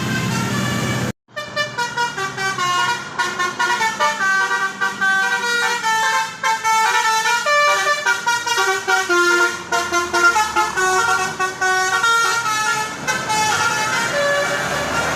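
A bus 'telolet' Basuri multi-trumpet air horn, driven by a Takur module, plays a fast melody of short stepped notes for about twelve seconds. It starts after a brief dropout about a second in, over a steady low vehicle running sound that returns as the tune ends near the end.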